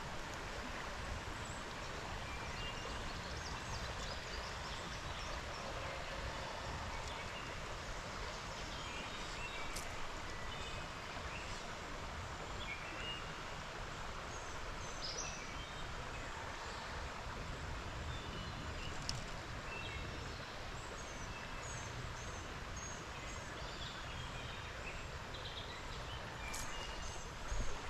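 Steady rush of flowing creek water, with scattered short bird chirps throughout.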